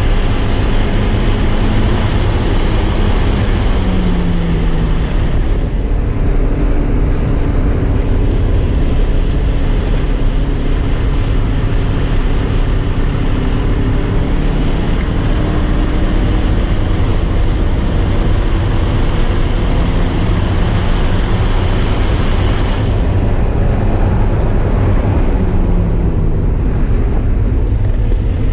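Porsche 944 four-cylinder engine running hard on track under heavy wind and road noise. Its pitch falls twice, a few seconds in and again near the end, and otherwise holds fairly steady.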